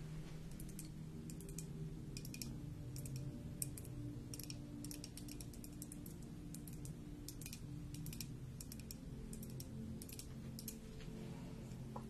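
Quick, light clicks in irregular clusters, from long fingernails tapping and scraping over a pale green comb. A steady low hum sits beneath.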